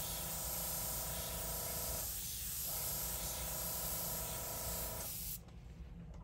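Gravity-feed dual-action airbrush spraying paint in a steady hiss while sideways dagger strokes are laid down. A faint whistle within the hiss drops out briefly twice between strokes, and the air stops about five seconds in.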